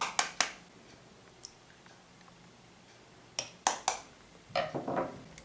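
A knife tapping a raw eggshell to crack it: two sharp taps just after the start and three more about three and a half seconds in, followed by a softer crackle near the end.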